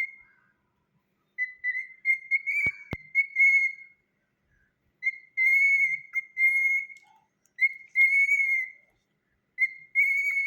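Cockatiel whistling a tune in short phrases of clear, fairly steady notes, four bursts with brief pauses between them. Two sharp clicks come about three seconds in.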